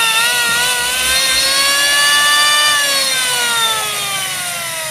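100-volt electric hand planer running with a motor and cutter-drum whine, its pitch wavering slightly. About three seconds in the pitch starts falling steadily as the planer winds down.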